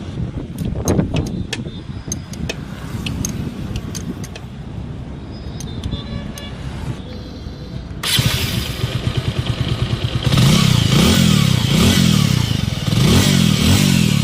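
Bajaj Avenger 150 Street's single-cylinder engine idling with several sharp clicks over it, then about eight seconds in it gets suddenly louder, and from about ten seconds in it is blipped repeatedly, the pitch rising and falling with each rev. The engine is being run to check the timing chain noise.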